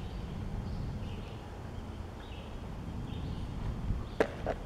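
Quiet background of a bird chirping about once a second over a low steady rumble, with a few light clicks near the end as small plastic toy figures are handled and set down.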